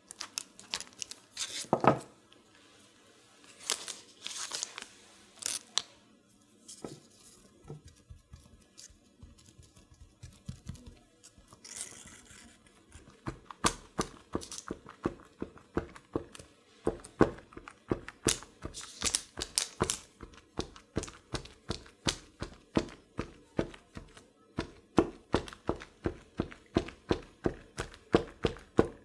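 A knife trimming pie dough and a strip of dough being peeled up off parchment paper, with scattered rustles and tearing sounds. From about halfway, a fork pricking the dough sheet over and over in quick, even taps, about three a second.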